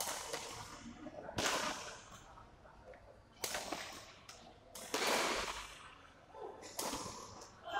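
Badminton rackets striking the shuttlecock in a doubles rally: about five sharp cracks, one every one and a half to two seconds, each echoing in the hall.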